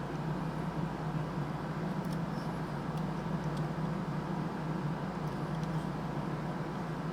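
Steady low background hum, with a few faint small clicks of small plastic detail parts being worked loose from an HO-scale model locomotive body.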